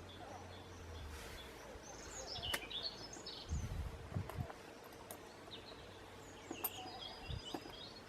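Birds chirping and calling on and off, with a few soft low bumps a few seconds in.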